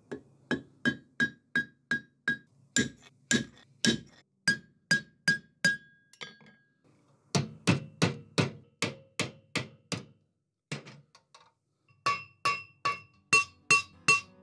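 Hammer blows on cold 4 mm bright steel rivets, peening them over to join the steel uprights and rings of a forged torch cage. The blows come in quick runs of about three a second, each with a short bright metallic ring, and there are two short pauses between runs.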